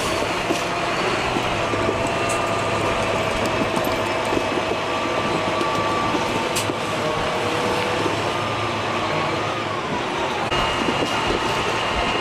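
Motor vehicle engine running steadily with a thin whine over it. The whine rises slightly and drops back about nine seconds in.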